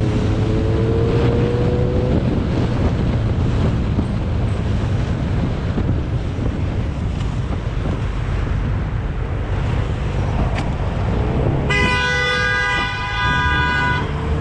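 Motorcycle running at speed with heavy wind rush, its engine note rising over the first couple of seconds. Near the end a vehicle horn blares steadily for about two seconds.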